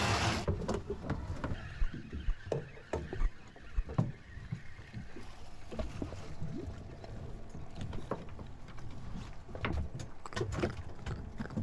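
Handling noise on a fishing party boat's deck: scattered knocks, clicks and rattles of rods, reels and a caught fish being handled, over a steady low rumble, with a short burst of hiss right at the start.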